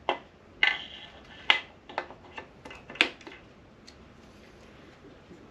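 Sharp metallic clinks and taps, about seven in three seconds, one with a short ring, as a piston-and-rod assembly and a tapered ring-compressor sleeve are handled and set on a cylinder bore of a Honda K24 engine block.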